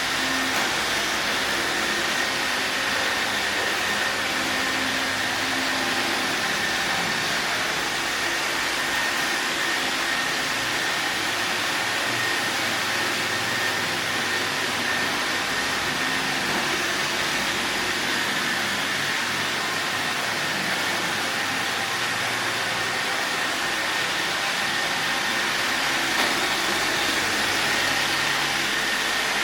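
Robot vacuum cleaner running steadily: an even whirring rush with a faint high whine held throughout.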